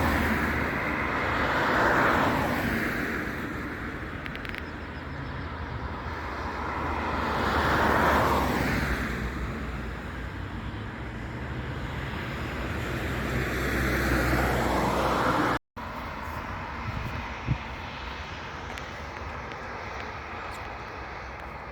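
Jet airliner engines, the noise swelling and fading several times with a sweeping pitch, loudest near the start, about eight seconds in and just before a sudden cut about two-thirds through; after the cut a quieter, steady engine noise.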